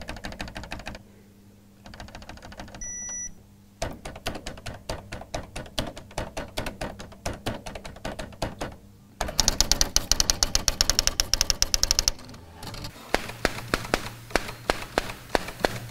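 Manual typewriter clattering in fast runs of keystrokes with short pauses between them, the loudest and quickest run about nine seconds in. A brief high ding sounds about three seconds in.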